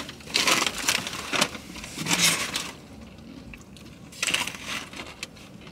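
Packaging and paper crinkling and rustling in several short bursts as things on the table are moved about in a search for a misplaced phone.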